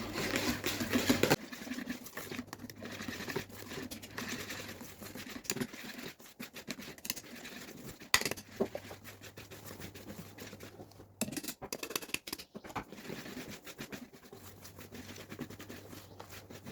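Flour being mixed into cake batter in a bowl with a hand utensil: irregular scraping and scratching with small taps against the bowl. A low steady hum stops about a second in and returns near the end.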